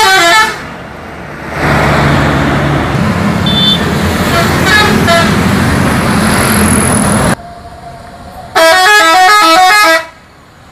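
Indonesian coaches passing in traffic and sounding multi-tone musical air horns ('telolet' horns). A short horn tune at the start gives way to traffic and engine noise. After a sudden cut, a loud stepped horn melody plays for about a second and a half near the end.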